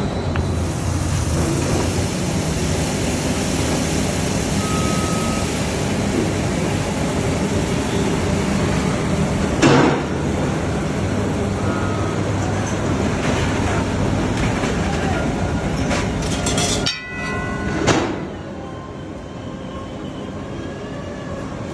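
Steady sizzling of food frying in oil on a hot street-stall griddle, over a low hum of street noise. A sharp knock comes about halfway through and a few more near the end, after which the sizzle drops away and it grows quieter.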